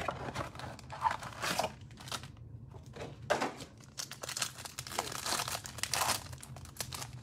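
A foil trading-card pack being torn open and crinkled by hand, with irregular crackles and rustles of wrapper and cardboard box.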